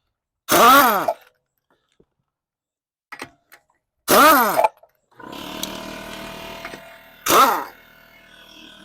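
Pneumatic impact wrench run in three short bursts, each a whine that rises and falls in pitch, spinning the lug bolts off a Mercedes Sprinter van's rear wheel. A steady hum comes in about five seconds in.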